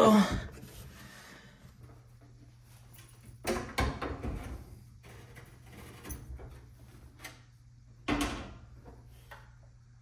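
Sheet-metal panels of a washer/dryer combo cabinet being handled: a few clunks and rattles, the loudest about three and a half seconds in and again just after eight seconds.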